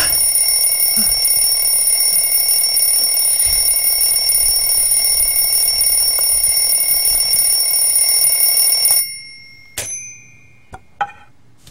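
Alarm clock ringing loudly and without a break, then cutting off suddenly about nine seconds in. A few sharp clicks follow.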